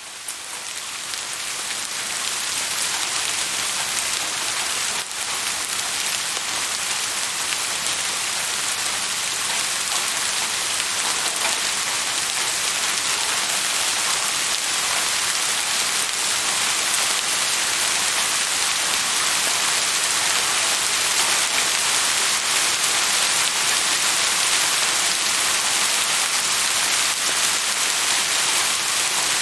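Steady rain falling, a dense even hiss of many fine drops, fading up from silence over the first two seconds.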